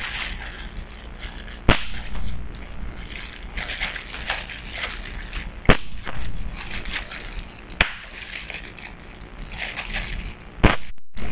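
Bubble wrap being squeezed and crinkled by hand, with a sharp pop each time a bubble bursts: four loud pops a few seconds apart, with crackling plastic between them.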